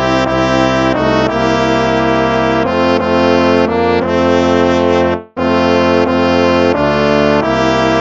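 Instrumental hymn played in brass-sounding held chords, moving from chord to chord at a slow hymn pace. The music breaks off for an instant about five seconds in, between phrases, then resumes.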